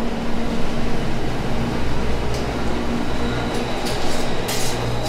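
Steady rushing noise of commercial kitchen ventilation with a low hum. A few short clatters come near the end.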